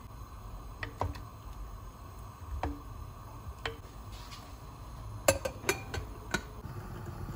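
Wooden spoon knocking against a glass cooking pot while stirring, three single knocks. Then a glass lid set onto the glass pot with a quick run of clinks about five to six seconds in, the first the loudest.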